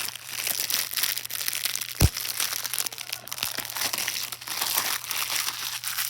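Plastic shrink-wrap being torn and crinkled off a DVD case, a continuous crackle, with one low thump about two seconds in.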